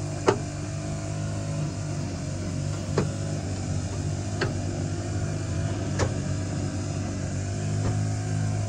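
A steady engine drone, with five short sharp knocks spread through it, the loudest just after the start.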